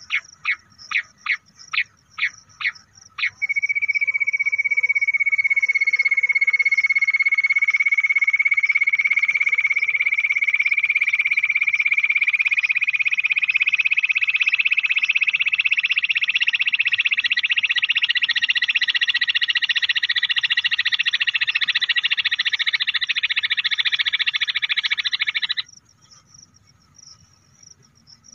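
Bush quail call played back from a phone as a hunting lure: about seven short sharp notes in quick succession, then a long unbroken trill that starts as a thin whistle, rises slightly in pitch and swells into a loud dense chatter before cutting off suddenly near the end. A faint steady high insect hum runs underneath.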